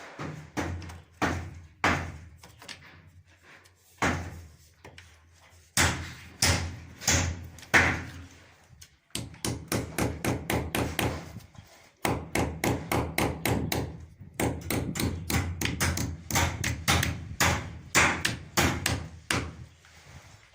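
Repeated sharp banging strikes, a few single blows at first, then fast runs of about four or five knocks a second.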